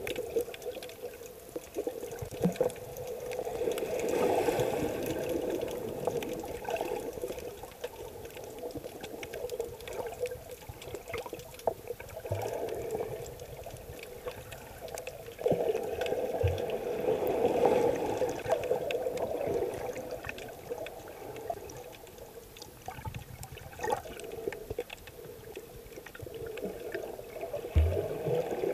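Muffled rushing and swirling of seawater heard with the microphone underwater in a camera housing, swelling and fading twice, with scattered small clicks and a few short low knocks.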